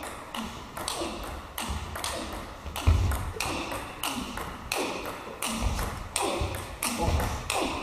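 Table-tennis rally: the ball clicks in a steady alternation off the bats and the table, about two to three clicks a second, with low thuds of the players' footwork on the hall floor.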